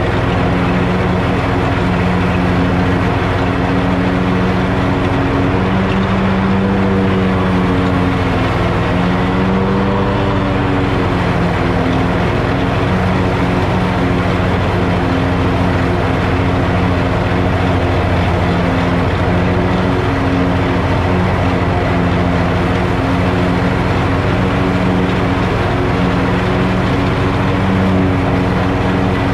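Zero-turn riding mower (Hustler FasTrak, 54-inch deck) running at full throttle with its blades cutting tall grass: a loud, steady engine drone over the rush of the deck. The engine note wavers briefly about six to ten seconds in.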